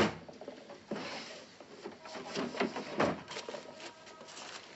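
A sharp knock at the very start, then a run of small clicks, knocks and scrapes of objects being handled and moved.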